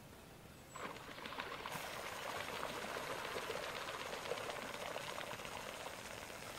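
A waterbird splashing fast across the pond surface, a dense, continuous pattering splash that starts about a second in.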